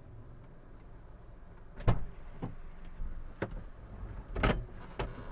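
Low rumble of a car heard from inside the cabin, with a handful of sharp clicks and thumps from a car door and a passenger getting in. The loudest thump comes about four and a half seconds in.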